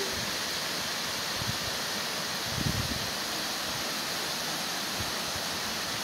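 Steady rushing hiss of a waterfall pouring into a pool, with a brief low rumble about two and a half seconds in.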